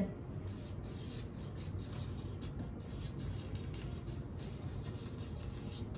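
Felt-tip marker writing on flip-chart paper: a run of short scratching strokes as a line of text is written.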